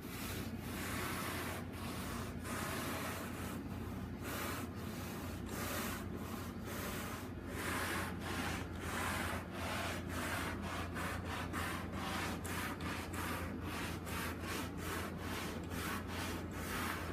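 Resolve Easy Clean Pro carpet-cleaning brush scrubbed back and forth over carpet: a rhythmic rubbing swish, about two strokes a second, as the brush works cleaning foam into a stain.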